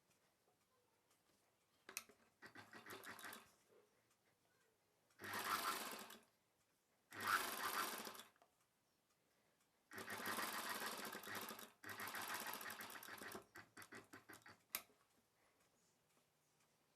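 Sewing machine stitching in short runs of one to two seconds with brief stops between, a few slow single stitches near the end and one sharp click. It is sewing a second line of stitching over an existing seam.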